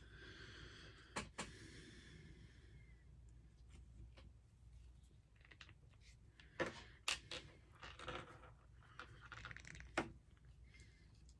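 Faint scattered clicks and soft rustles of monofilament fishing line and a hook being handled while a snell knot is pulled tight.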